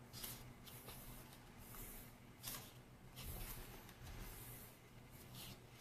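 Faint rustling and swishing of paper pages in a K-pop album photobook as they are turned and smoothed flat by hand, in several short bursts.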